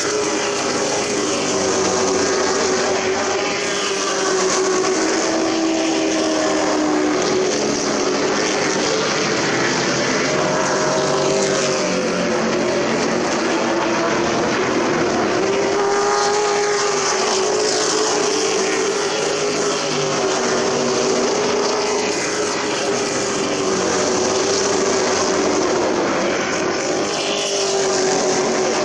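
Several race truck engines running together on a short oval, their pitch wavering up and down as they go around the track.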